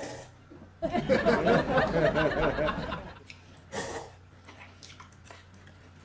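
A person laughing: a pulsing chuckle of about two seconds, starting about a second in, followed by a short click.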